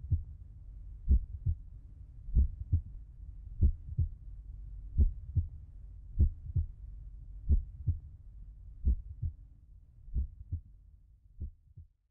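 Slow heartbeat: paired low lub-dub thumps about once every second and a quarter over a steady low rumble, stopping suddenly near the end.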